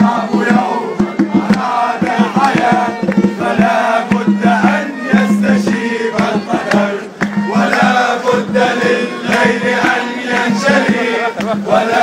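A crowd of young men singing a chant together, with many sharp percussive hits running under the voices.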